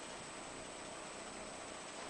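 Horizontal organic fertilizer pellet machine running with a steady, even noise and no distinct knocks.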